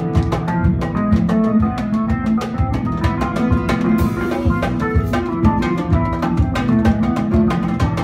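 Live band music: oud and acoustic guitar plucking over electric bass and a drum kit keeping a quick, steady beat, with a cymbal crash about halfway through.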